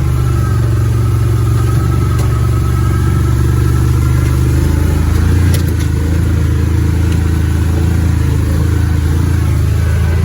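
A vehicle engine running steadily, with a few light clicks about halfway through.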